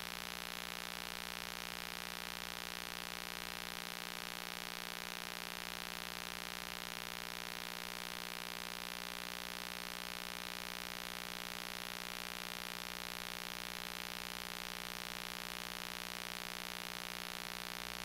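Steady hiss with a constant hum and no other sound: the recording's noise floor, with the sermon's voice missing from the track.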